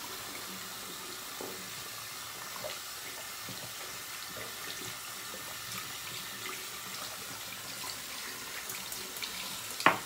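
Tap water running steadily into a bathroom sink, with light splashing as shaving lather is rinsed off a face. One short, sharp sound comes near the end.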